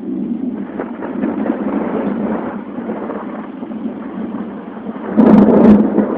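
Thunder rolling in, rumbling unevenly, then a much louder peal about five seconds in.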